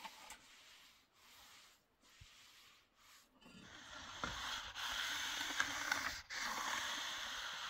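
A mason's trowel working wet cement mortar on concrete blocks: quiet at first, then from about halfway through a steady wet scraping and slapping with a few sharper scrapes.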